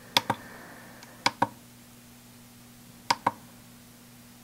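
Small plastic buttons on a Feelworld FW759 camera monitor being pressed, three times, each press a sharp double click of press and release, stepping through the monitor's on-screen menus. A faint steady low hum runs underneath.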